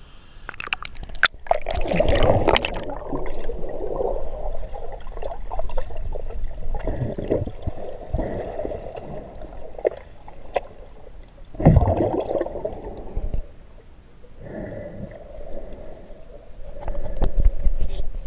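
Water gurgling and sloshing around a GoPro camera as it dips from the river surface to underwater, heard muffled through the sealed waterproof housing, with a few sharp knocks against the case.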